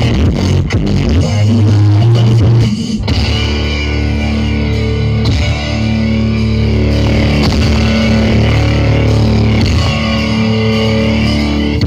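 Loud guitar-driven music with heavy bass played through the X-One Pro Audio horeg sound system's CLA loudspeaker boxes. About three seconds in, a pounding beat gives way to held chords over a steady deep bass.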